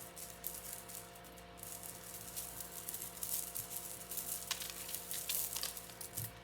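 Metal chain necklace being handled and untangled, with light scattered clinks and rustling that come thicker from about two seconds in.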